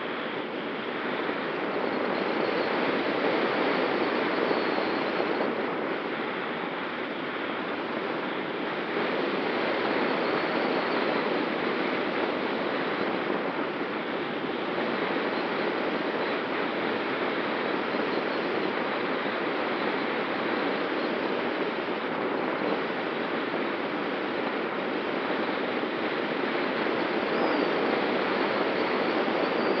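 Steady rush of airflow over a camera mounted on a gliding sailplane's wing, swelling and easing slightly in loudness, with a faint steady whistle underneath.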